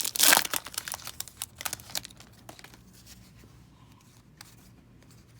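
Wrapper of a hockey card pack crinkling and tearing, loudest just after the start, then the cards being handled with sparse light clicks that fade out by about halfway through.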